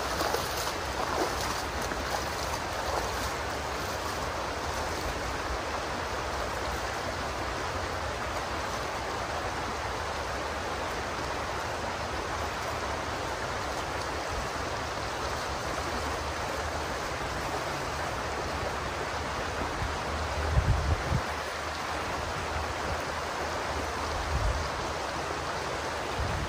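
Shallow creek water flowing and rippling steadily over the stream bed. A couple of brief low thumps come near the end.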